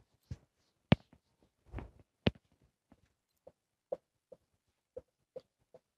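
Dry-erase marker tapping and stroking on a whiteboard: a run of short, sharp taps, the two loudest about one and two seconds in, then lighter taps about half a second apart.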